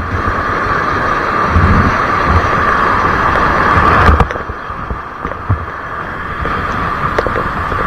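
Wind buffeting the microphone, with irregular low rumbles over a steady hiss and a few sharp clicks.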